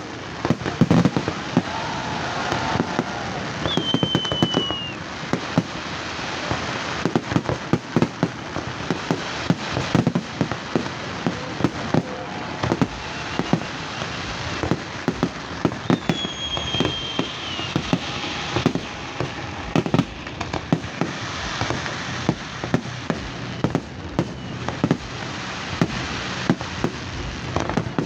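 Fireworks display: a dense, irregular barrage of bangs and pops over a steady crackling haze, with a short high whistle falling in pitch about four seconds in and again about sixteen seconds in.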